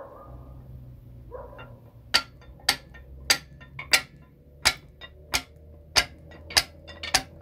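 Steel pry bars (tire-iron ends) working a main bearing cap loose from an LS engine block. From about two seconds in comes a steady run of sharp metallic clicks, one about every 0.6 s, as the bars tap and shift against the cap while it is rocked upward.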